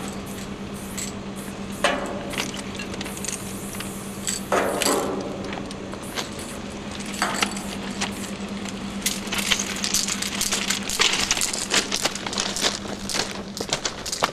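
Aerosol spray-paint can hissing in short bursts as a graffiti tag is painted, among metallic clinks and rattles that grow thicker in the last few seconds. A steady low hum runs underneath.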